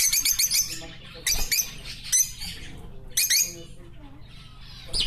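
Small cage birds chirping in quick high trills and chatter, in short bursts with brief pauses between them.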